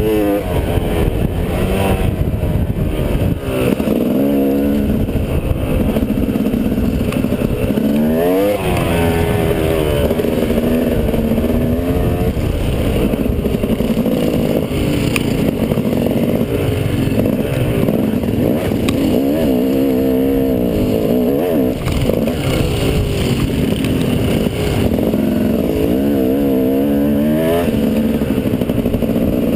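Dirt bike engine under way, revving up and dropping back again and again as the throttle is worked, with wind rushing over a helmet-mounted camera.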